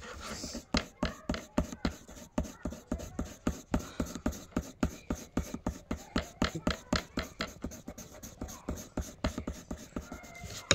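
Graphite pencil hatching on drawing paper: a long run of quick scratchy strokes, about four or five a second, shading in hair.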